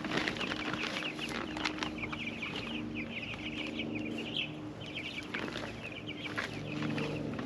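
A flock of young meat chickens peeping, many short, high calls overlapping in a steady chorus, with a low steady hum beneath.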